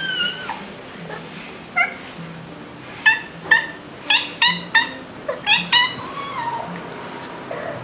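Young tabby cat meowing over and over in short calls, about ten in quick succession, some gliding down in pitch. Near the end comes one longer, drawn-out meow.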